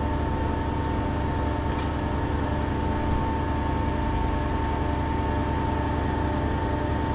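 Steady hum of workshop machinery running at a constant pitch, with a single light metallic clink about two seconds in.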